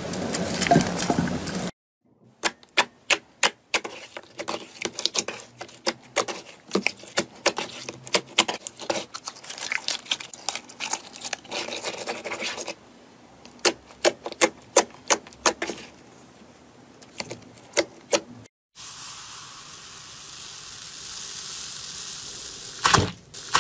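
Hands working slime. First comes a dense squishing, then after a break a long run of sharp clicks and pops as glossy slime is pressed and poked. After another break there is a steady soft hiss as a hand presses into a bowl of slime, and a few loud pops near the end.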